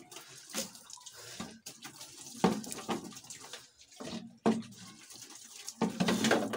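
Water from a plastic dipper poured over a person's head and body, splashing onto a concrete floor in several uneven bursts, the longest near the end. Between pours, water runs from a hose into a plastic bucket.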